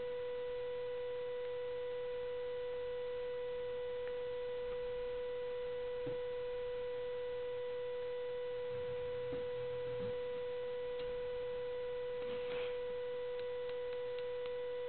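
A steady electrical buzz at one fixed pitch with a stack of overtones, unchanging throughout: interference noise in the recording. A few faint clicks and taps of small parts being handled sit under it.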